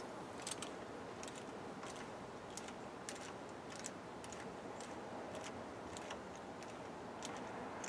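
Thread tap turned by hand in a tap wrench, cutting through a caliper bolt hole in a cast axle housing: faint, irregular metallic clicks and ticks.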